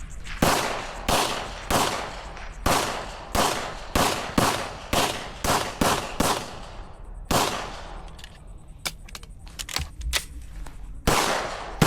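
A timed string of pistol shots, about a dozen fired at a steady pace of roughly two a second. A pause with a few faint sharp cracks follows, then two more shots near the end.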